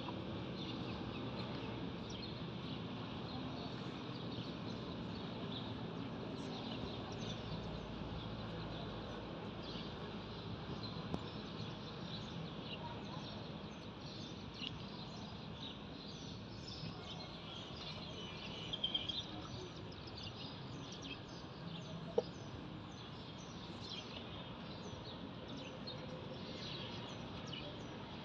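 Outdoor farm ambience: a steady background hiss with many short bird chirps throughout, and a few single sharp knocks.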